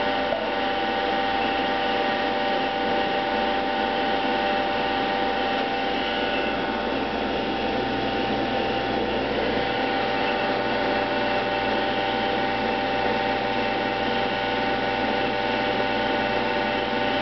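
Baldwin hydraulic compression testing machine running with a steady hum as its ram slowly raises the lower platen to close on a flashlight, before the load comes on.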